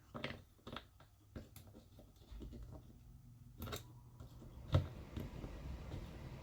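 Scattered small clicks and light knocks of RC car differential parts and shims being handled and fitted, with one sharper knock about three quarters of the way through.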